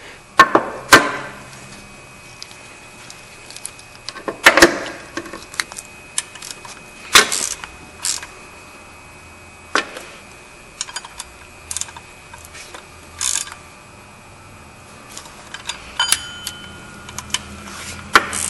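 Ratchet wrench and socket tightening water pump bolts: scattered, irregular sharp metal clicks and clinks, the loudest near the start and around four to five seconds in, as each bolt is snugged down in turn.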